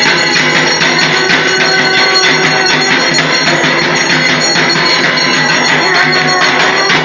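Loud, continuous arati accompaniment of ringing metal bells over a steady, fast beat of struck percussion.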